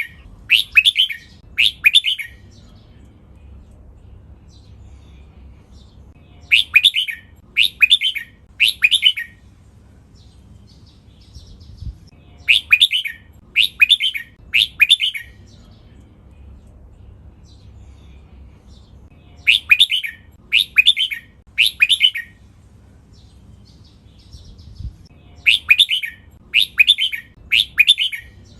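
Red-whiskered bulbul singing in bouts of three quick, bright phrases about a second apart, with a new bout every six to seven seconds. A faint low hum lies underneath.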